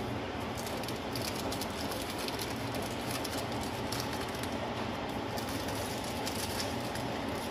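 Steady background noise with many faint, light clicks and scratches scattered through it, from kittens' paws and claws scrabbling on a rubber flip-flop and a tile floor.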